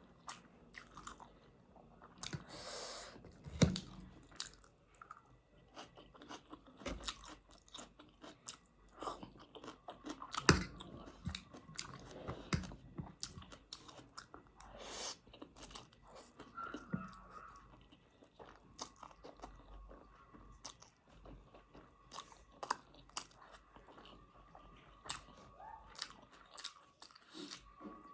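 A person eating pork and spicy instant noodles close to the microphone: chewing, biting and crunching, with irregular wet mouth clicks and smacks.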